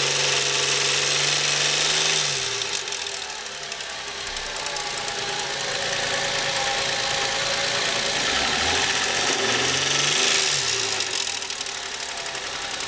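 Car engine running with a rattle from the engine bay. It is held at raised revs, drops back to idle about two seconds in, and is revved up and let back down again around ten seconds in.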